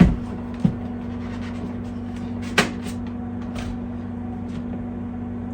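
Plastic clicks and knocks from a Hoover Elite Rewind bagless upright vacuum as its dust cup and filter are unlatched and taken out: three sharp knocks, at the start, under a second in and near the middle, with a few fainter clicks, over a steady low hum.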